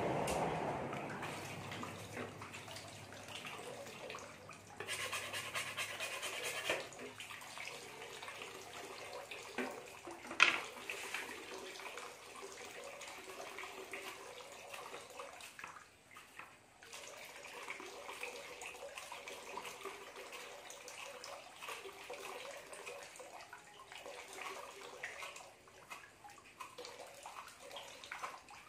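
Water pouring from a pipe into a large metal basin of water, a steady splashing, with occasional knife chops on a plastic cutting board and one sharp knock about ten seconds in.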